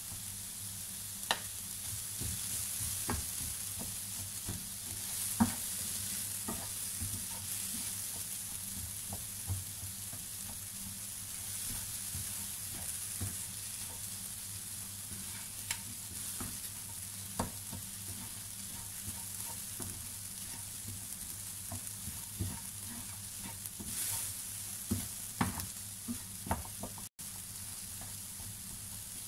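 Spiced potato filling sizzling in an aluminium frying pan as a silicone spatula stirs and breaks up the potatoes. Over the steady hiss of the frying come scattered sharp taps and scrapes of the spatula against the pan.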